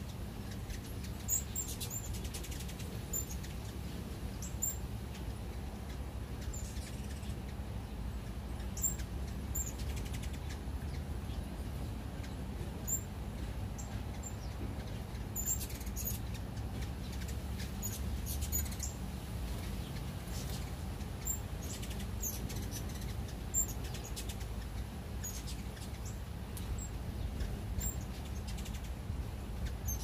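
Hummingbirds at nectar feeders giving short, very high, squeaky chip calls scattered throughout, with brief whirs of wings as they dart past, over a steady low rumble.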